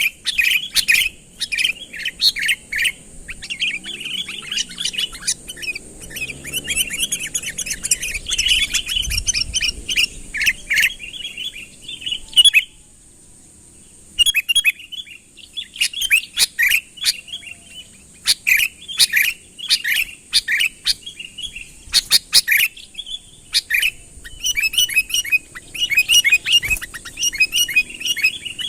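Sooty-headed bulbul (kutilang) singing energetically in quick, repeated chattering phrases, with a brief pause about halfway through. This is the lively calling used to lure rival bulbuls in.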